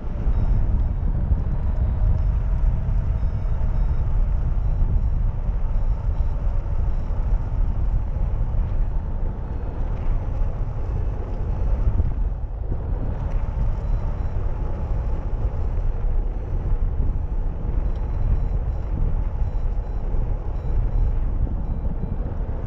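Wind from the hang glider's airspeed buffeting the microphone of a camera mounted on the glider's wing: a steady, heavy, low rumble of wind noise.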